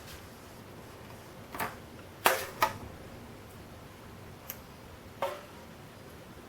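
Five sharp clinks and knocks of a utensil against cookware as curry is spooned out. The loudest is a close pair about two and a half seconds in, each with a short ring.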